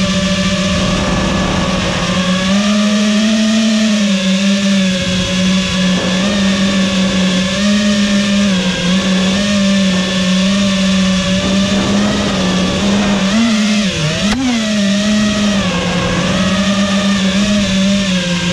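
FPV quadcopter's electric motors and propellers whining steadily, the pitch dipping and rising with the throttle. There is a sharp drop and surge about fourteen seconds in.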